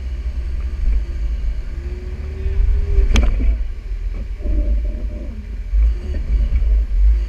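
Jeep Wrangler engine idling as the Jeep crawls slowly over creek-bed boulders, a steady low rumble. There is one sharp knock about three seconds in.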